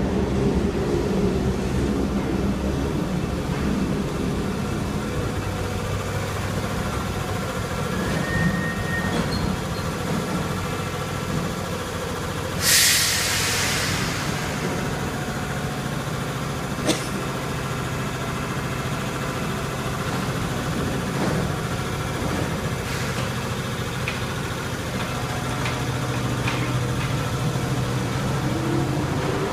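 Paris Métro train rumbling into the station and braking to a stop. A loud hiss of air comes about thirteen seconds in, and a sharp click follows a few seconds later. Near the end a rising whine begins as the train starts to pull away.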